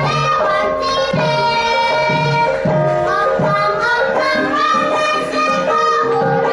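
Javanese gamelan ensemble playing a lancaran in the pelog scale (pathet nem): bronze metallophones and gong-chimes ringing out the melody over hand-played kendang drum strokes that bend in pitch.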